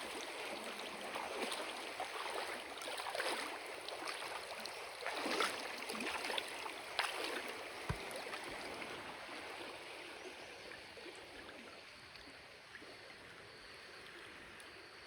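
River stream flowing and splashing, with irregular louder splashes in the first half, gradually fading out over the last several seconds.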